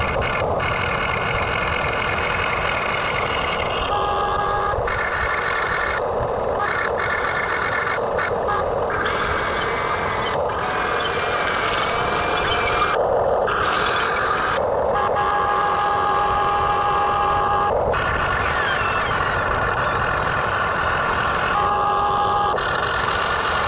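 Machinery running steadily with an engine-like rumble, overlaid by high whining tones that cut in and out every few seconds.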